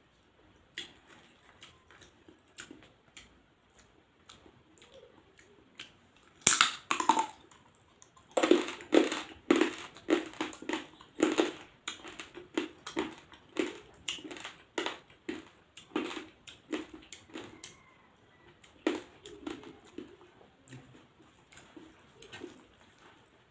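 Cooked crab shell cracking and crunching as the crab is eaten. Faint scattered clicks at first, a sharp crack about six and a half seconds in, then a run of loud crunches about two a second that thin out near the end.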